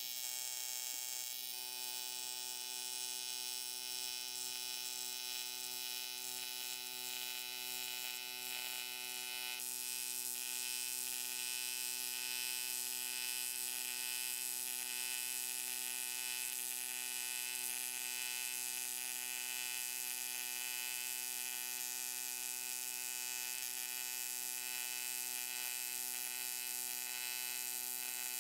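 AC TIG welding arc on aluminum: a steady electric buzz with a hiss over it, the hiss growing a little louder about ten seconds in.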